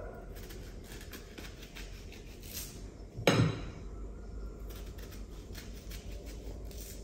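Kitchen knife peeling and slicing fruit over a plate, giving light scraping cuts, with one loud knock against the plate a little over three seconds in.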